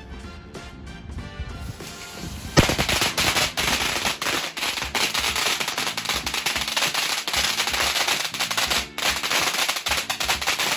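A long hanging string of firecrackers going off: a sudden start about two and a half seconds in, then about nine seconds of rapid, continuous cracking bangs, with a brief gap near the end. Background music plays before the bangs begin.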